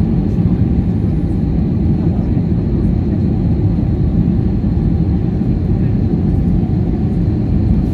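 Steady cabin noise inside an Airbus A320 descending on approach: an even, low roar of the engines and rushing air, with a faint steady tone above it.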